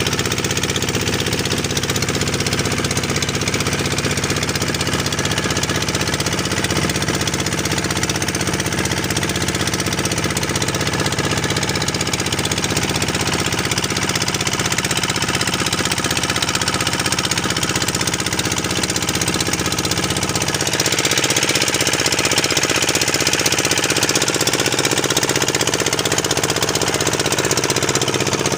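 Fishing boat's engine running steadily. A louder hiss joins it about twenty seconds in.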